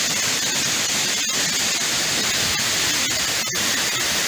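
Waterfall rushing: a loud, steady, dense hiss of falling water, broken by a couple of split-second dropouts about a second and three and a half seconds in.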